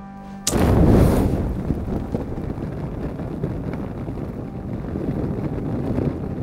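Fire ignites with a sudden whoosh about half a second in, then the flames burn with a steady rushing noise.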